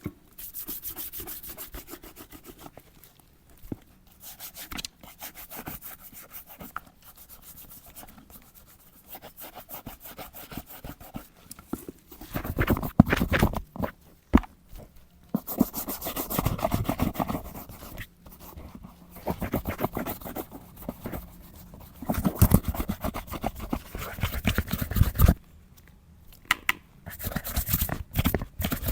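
Brushing and rubbing on a leather boot in stretches of quick scratchy strokes, quieter at first and loudest in several bursts in the second half.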